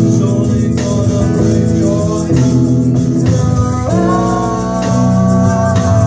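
Live rock band playing: acoustic and electric guitars and a drum kit, with a man singing and shaking a tambourine. The voice holds a long note from about four seconds in.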